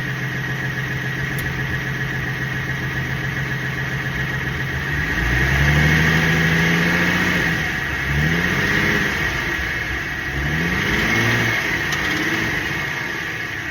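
2017 Ford Mustang's 3.7-litre V6 idling, then revved about five seconds in and held for about two seconds, followed by two shorter revs rising in pitch. A steady high-pitched whine runs alongside the engine throughout.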